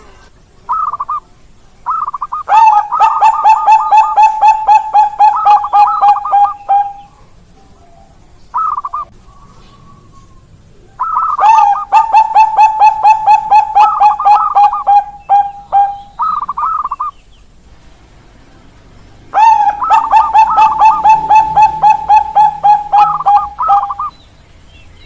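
Bangkok-line zebra dove (perkutut) cooing: three long phrases, each a fast run of evenly spaced staccato coos lasting four to five seconds, with short, higher-pitched note clusters between the phrases.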